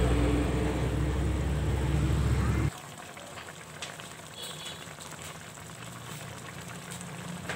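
A loud low rumble with a steady hum cuts off abruptly nearly three seconds in. After it, a tomato broth with milkfish and egg bubbles at a boil in a wok, a quieter steady simmering hiss with faint pops.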